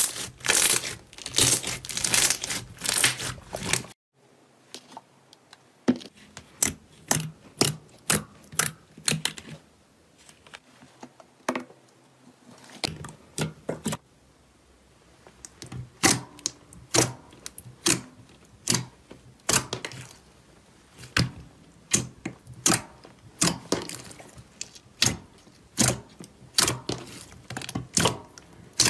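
Clear jelly slime squeezed and pressed by hand: sharp wet clicks and pops of trapped air. They come as a dense crackling at first, then as separate pops about once or twice a second, with a short pause near the middle.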